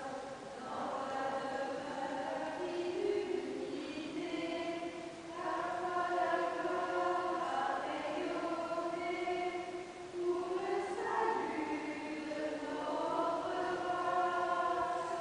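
A choir singing slow, held notes in several parts, in long phrases that swell and break about every five seconds.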